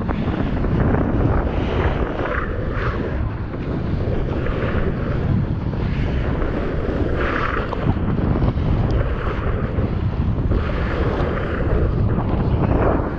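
Wind buffeting the microphone of a board-level POV camera, over the rush and splash of water around a surfboard riding through broken surf, with irregular surges of spray.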